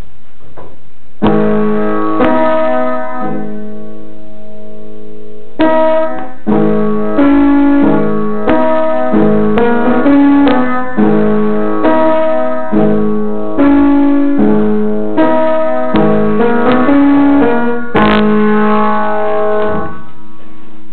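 Piano music: a chord struck about a second in, then from about six seconds in a steady run of notes and chords, each fading after it is struck.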